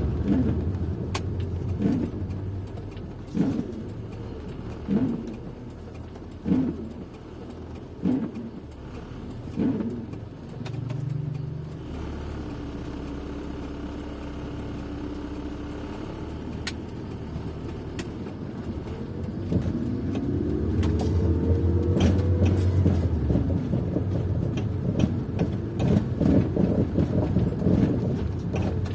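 Car being driven, heard from inside: a steady engine and road drone with regular thumps about every second and a half during the first ten seconds. Later a steady hum, then the engine pitch rises for a few seconds as the car accelerates about twenty seconds in.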